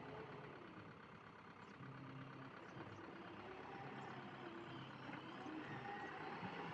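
Faint diesel engine of heavy machinery running steadily.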